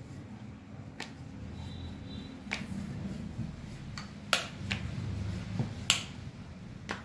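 Rolling pin rolling out paratha dough on a round board: a steady low rumble with about six sharp clicks scattered through it.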